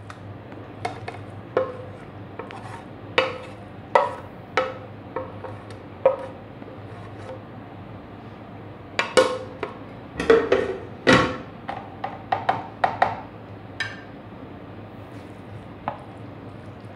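A wooden spoon knocking and scraping against a ceramic plate and a plastic bowl as boiled grated pumpkin is pushed off the plate into yogurt: irregular taps, some with a short ring, busiest in a quick run about halfway through.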